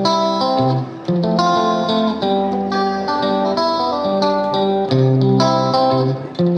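Intro music: guitar chords played in a steady rhythm.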